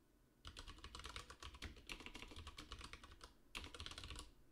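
Fast typing on a computer keyboard: a quick run of key clicks starting about half a second in, with a brief break near the end before a last few keystrokes.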